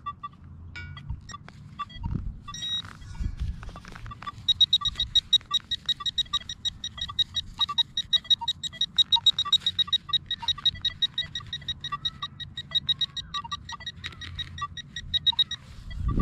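Handheld metal-detecting pinpointer beeping rapidly and steadily as it sits over a buried target, starting about four seconds in, with short lower beeps scattered through it. A few faint knocks of digging come before the beeping.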